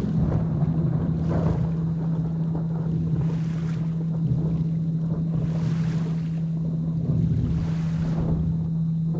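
A steady low tone at about 165 Hz from a binaural-beat track, over recorded rain and rolling thunder rumbles that swell and fade every couple of seconds.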